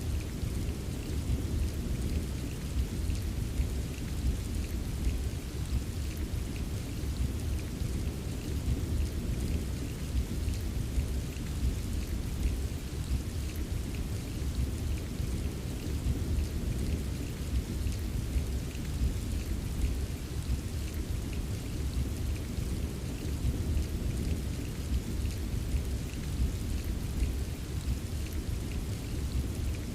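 Steady rain with many small drops ticking, over a continuous low rumble of distant thunder.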